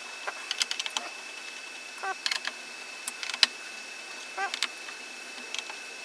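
Small sharp clicks and taps of plastic and metal parts being handled and fitted inside an opened all-in-one computer during reassembly of the heatsink and fan, the loudest about halfway through. A cat meows briefly twice, about two seconds in and again past four seconds, over a faint steady high whine.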